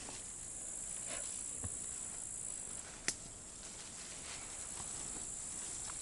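Grasshoppers chirring in a steady, high-pitched chorus, with a single sharp click about three seconds in.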